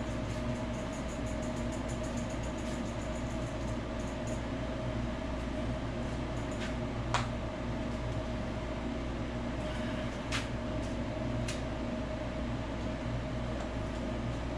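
Steady low hum of a garage room, with light clicks and knocks as a road bicycle is handled, three of them sharper in the second half.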